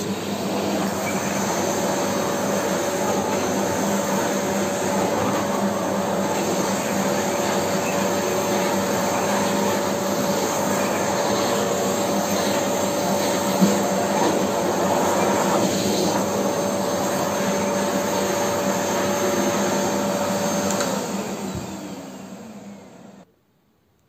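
Delta Lux DL-0836 bagless cyclone canister vacuum cleaner running with a steady whine. About 21 s in it is switched off and the motor spins down, its whine falling over about two seconds to silence.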